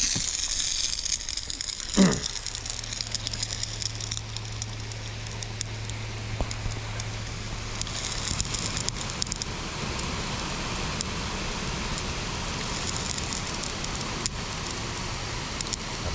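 Lawn irrigation sprinklers spraying, water pattering on grass and plants. A single sharp knock comes about two seconds in, followed by a low steady hum for several seconds.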